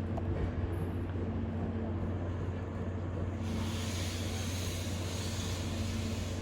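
Standing C58-class steam locomotive giving a steady low mechanical hum. About halfway through, a loud high hiss of escaping steam joins it and cuts off sharply near the end.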